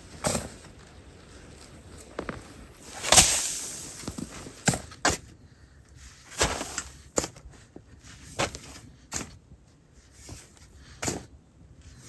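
A shovel cutting into sandy soil and sand being tossed off the blade, in short scraping strokes at an irregular pace of roughly one a second; the loudest stroke comes about three seconds in.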